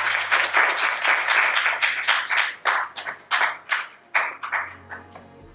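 A small group clapping: dense applause that thins to a few scattered claps about four seconds in.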